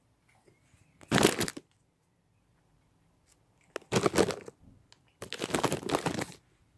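Bread being torn apart by hand, its crust crackling and crunching in three bursts, the last the longest.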